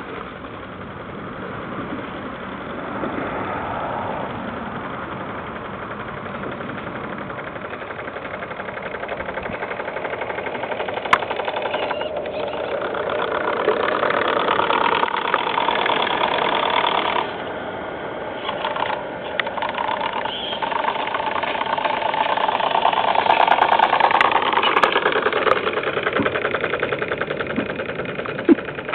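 Wilesco two-cylinder, double-acting model steam engine, fed by a small boiler, running with a fast, even beat. It grows louder as the launch passes close, drops suddenly past the middle, then grows louder again.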